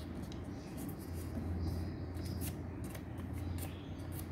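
Crisp paper rustles and scratches as a small square sheet of origami paper is folded in half and the crease pressed down with the fingers, over a steady low hum.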